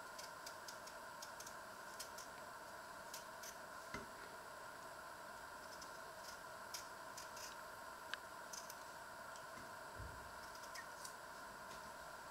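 A small kitchen knife peeling a potato by hand: faint, irregular little clicks and scrapes, a sharper tick about four seconds in and again about eight seconds in. A steady low hum lies underneath.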